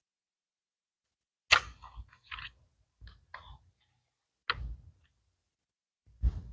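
A few scattered sharp clicks and light knocks, like handling noise, the loudest about a second and a half in and another near the end.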